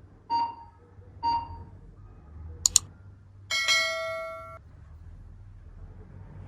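Two short electronic beeps about a second apart, a sharp double click, then a bright bell-like chime that rings for about a second and cuts off abruptly.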